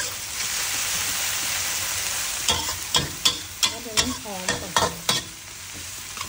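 Chopped shallots, chillies and garlic sizzling in hot oil in a wok. From about two and a half seconds in, a spatula scrapes and knocks against the wok several times as the base is stirred, then the sizzling goes on more quietly.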